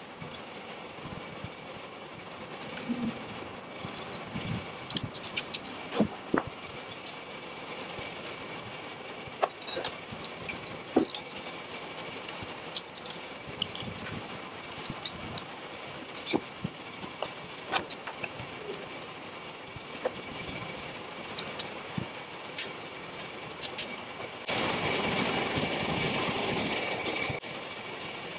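Scattered metal clanks and knocks as a Toyota Land Cruiser FJ40 transmission is worked forward onto the engine's bell housing, over a faint steady hum. Near the end a louder steady rushing noise runs for about three seconds.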